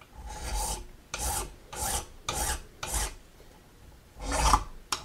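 Hand file, a 6-inch Grobet, rasping a brass keyhole escutcheon held in a vise: five short, even strokes, a pause of about a second, then another stroke near the end.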